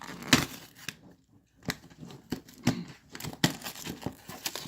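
Plastic toy packaging being handled and pulled open: a series of sharp crackles and snaps, the loudest about a third of a second in.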